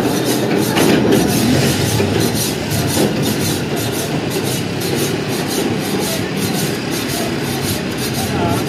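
Loud, steady rumbling noise with a fast crackle on top, like machinery or traffic running without pause.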